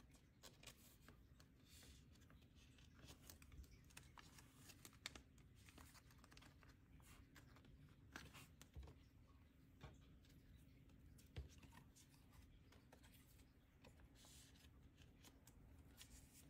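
Faint, scattered rustling and light clicks of plastic-sleeved photocards being slid into the clear plastic pockets of a ring-binder page, over a low steady hum.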